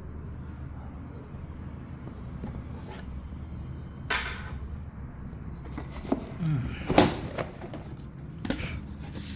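Shelf parts being handled during unpacking: scattered knocks and rustling, with the sharpest, loudest knock about seven seconds in, over a steady low hum.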